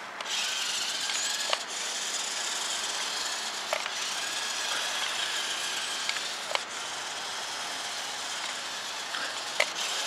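Toy remote-control 4x4 crawler's electric drive motor and plastic gearbox running steadily as the truck drives over snow and ice, starting a moment in. A few sharp clicks come through it.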